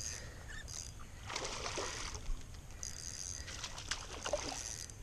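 Hooked smallmouth bass splashing at the water's surface as it fights the line, in two bursts: a short one about a second and a half in, and a longer one near the end.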